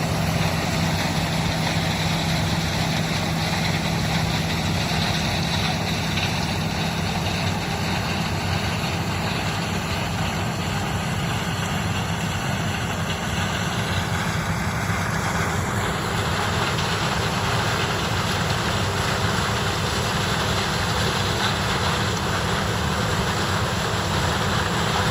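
John Deere 9670 combine running steadily: a constant engine hum under a dense, even mechanical noise.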